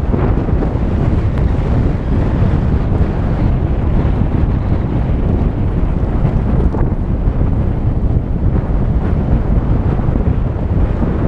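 Steady wind buffeting the microphone over the low rumble of a Volkswagen Tiguan driving on a dirt road, with a few faint ticks along the way.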